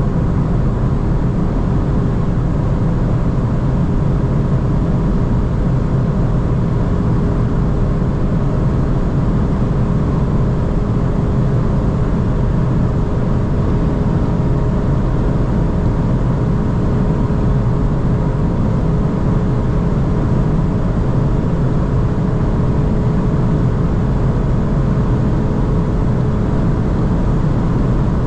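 Volkswagen Golf 8 R Performance driving at high speed on the Autobahn: its turbocharged 2.0-litre four-cylinder holds a steady drone under heavy wind and tyre noise, with the pitch barely changing.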